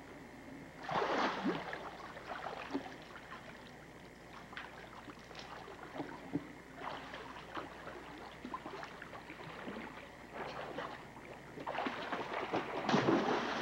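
Water splashing in a swimming pool as people swim, with irregular splashes, and a big splash near the end as someone jumps in off the diving board.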